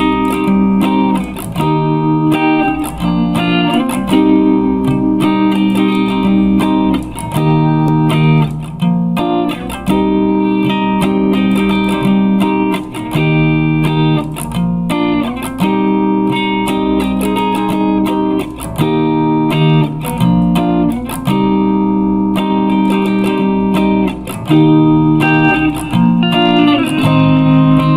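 Guitar music: a plucked guitar playing sustained chords and notes that change every second or two.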